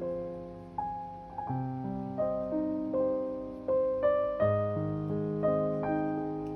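Slow, gentle solo piano music, with notes and soft chords struck about once or twice a second, each ringing and fading before the next.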